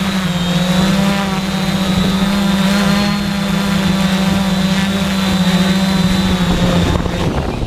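Quadcopter drone's propellers and motors whining steadily as it descends to hover just above the ground, the pitch wavering slightly. The whine stops a little before the end, as the motors cut out.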